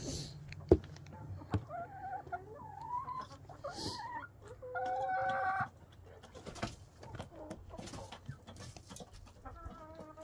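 Hens clucking and calling in short rising and falling notes, with one drawn-out call of about a second near the middle. A single sharp knock sounds just under a second in.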